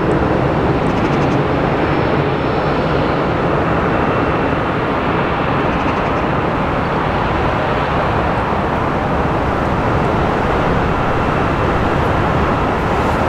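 Airbus A380's jet engines running loud and steady, a dense rumble with a faint high whine over it.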